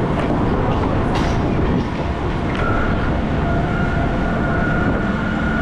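A ride train rumbling steadily along its track. A steady thin whine comes in about halfway through.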